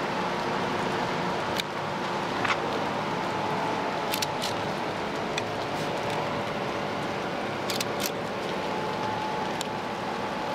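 Steady rain hiss with a few scattered sharp raindrop ticks, over a steady hum with faint held tones from the passing car carrier's machinery.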